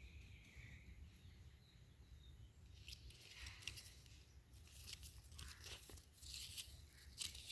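Faint rustling and crinkling of a paper tag being handled, starting about three seconds in and coming in short scattered bursts.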